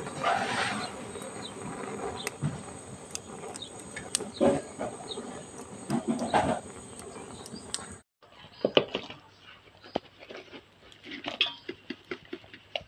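Wood fire crackling with scattered sharp pops in a metal drum stove, under a bamboo tube of cooking fish. The sound cuts off about eight seconds in, and only scattered light clicks and taps follow.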